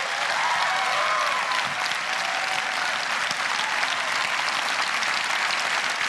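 Large auditorium audience clapping steadily, with a few cheers in the first couple of seconds.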